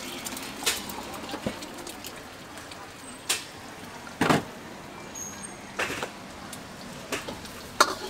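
Metal ladle knocking and scraping against a steel wok while stir-frying: about six sharp, irregular strikes, the loudest a little past halfway, over steady background noise.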